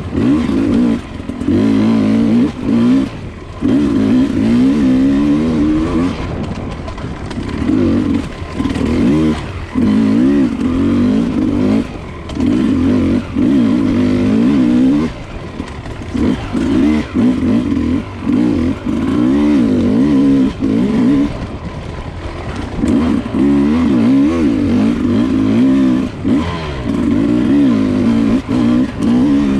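Enduro dirt bike engine heard from the rider's bike, the throttle opened and shut over and over so the pitch rises and falls in waves, with a brief drop in level every couple of seconds as the throttle closes.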